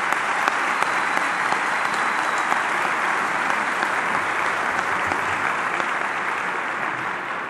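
Audience applauding: a large crowd clapping steadily, beginning to die away near the end.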